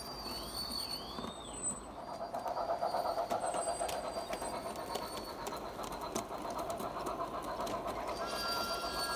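Garden-scale Thomas the Tank Engine model locomotive running on track with its coaches, its motor and gears whirring with a fine rattle of wheels on the rails, growing louder about two seconds in as it passes close. A bird chirps twice near the start, and a steady high tone comes in near the end.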